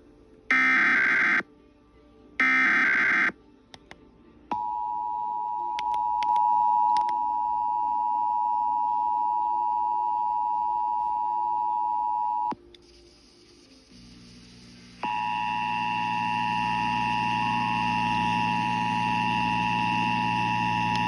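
Emergency Alert System signals on a radio broadcast. First come two harsh, buzzy digital data bursts of the SAME header, each about a second long. Then the steady two-tone attention signal sounds for about eight seconds and cuts off. After a short pause a low hum comes in, and the two-tone signal starts again over it.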